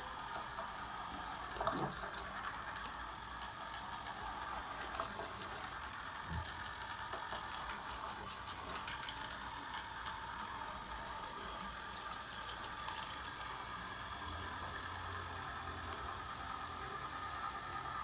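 LIGHT 'N' EASY robot vacuum cleaner running on a parquet floor with a steady motor whir. Three times it breaks into a spell of rapid rattling clicks lasting a second or two.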